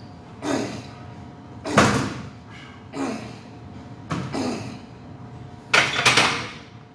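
A man's forceful grunting exhalations, one with each rep of a 245-lb barbell incline bench press, five in all about a second and a bit apart, the last ones the loudest as the set gets hard.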